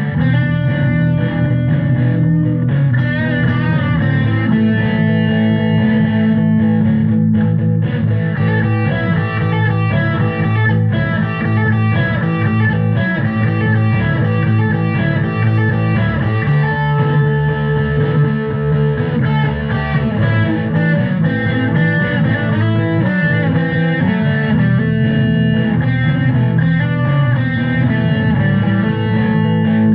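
Background music: electric guitar with bass, a steady instrumental track.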